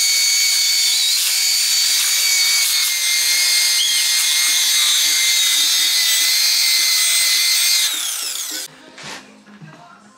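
Electric rotary polisher buffing a plastic headlight lens, running at a steady speed with a high whine. About eight seconds in its pitch falls as it winds down, and then it stops; faint rubbing and light clicks follow.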